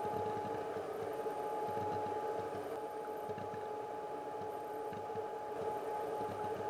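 Creek current heard underwater through a submerged camera: a steady wash of flowing water over gravel with an irregular low flutter, and a thin steady tone running through it.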